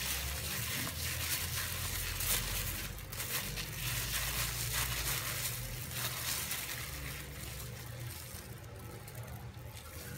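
Minced shrimp paste being squeezed and mixed by hand through a plastic bag: wet squelching with crinkling plastic, in uneven strokes.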